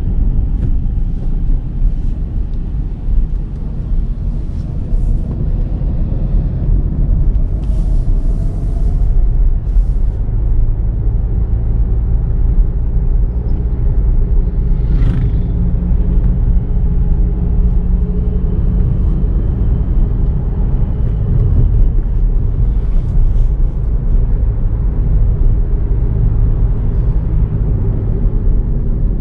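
Volkswagen Virtus GT's 1.5-litre turbocharged four-cylinder petrol engine and tyre rumble as the car is driven, with the engine note rising and falling as the revs change.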